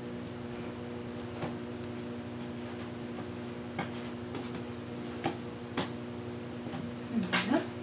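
Light, irregular clicks and taps from hands knotting strips of cut T-shirt fabric on a tabletop, over a steady low hum. Near the end there is a short sliding hum of the voice.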